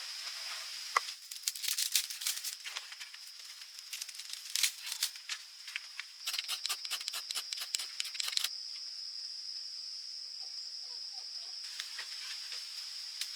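A steady high-pitched drone with three bursts of sharp crackling and rustling, the loudest about two, five and seven seconds in.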